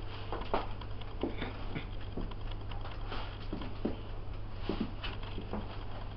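Light scattered taps and scrapes of a knife cutting slits in rolled dough on a kitchen counter, over a steady low electrical hum.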